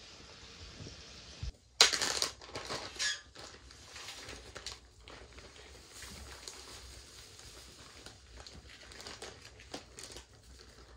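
Plastic zip-top bags crinkling and rustling as they are opened and handled, loudest just under two seconds in, then lighter rustles.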